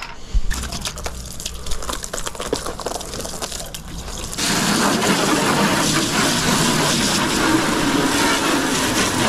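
Gear clattering and knocking, then about four seconds in water starts gushing steadily into a bucket, filling it.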